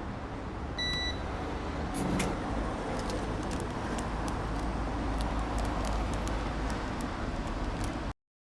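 Steady low rumble of vehicle and traffic noise, with a single short electronic beep about a second in and a few light clicks; it cuts off just before the end.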